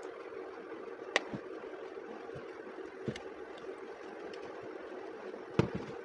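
An opened hair dryer's plastic housing and wiring being handled during reassembly: three light clicks and knocks, the loudest near the end, over a steady background hum.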